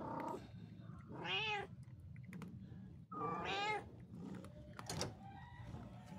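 A cat meowing twice: two drawn-out calls, each rising and then falling in pitch, about two seconds apart.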